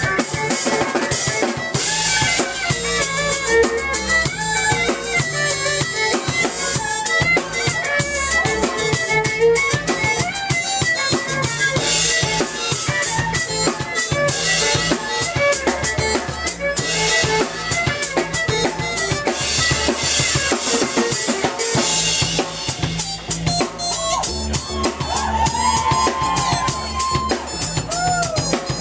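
Live band playing: a drum kit keeps a steady, busy beat over a low bass line, with violin and keyboard melody on top; the melody slides up and down near the end.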